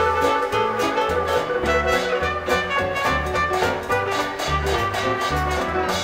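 Dance orchestra playing 1920s–30s style jazz, with a steady beat and bass notes moving under the melody.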